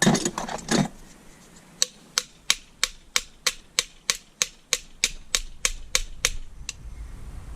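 A brief scrape, then an even run of about fifteen sharp metal taps, roughly three a second: a scrap door handle being struck with a tool to test the metal, where denting marks it as aluminium.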